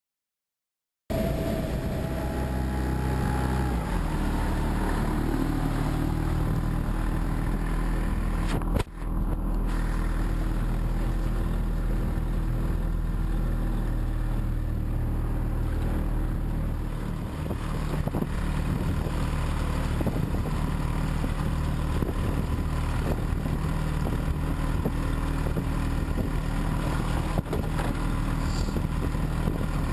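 An engine running steadily with a low, even drone, starting abruptly about a second in, with a brief break about nine seconds in.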